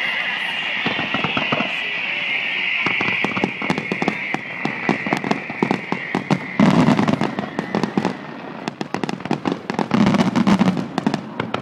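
Fireworks display: a drawn-out whistling hiss that slowly falls in pitch, over dense crackling and snapping, with two heavier shell bursts about six and a half and ten seconds in.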